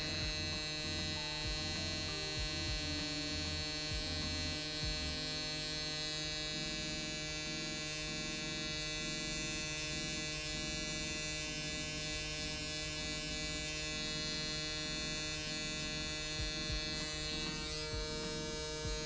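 Electric permanent-makeup machine pen running steadily as its needle works into the eyebrow skin for microshading.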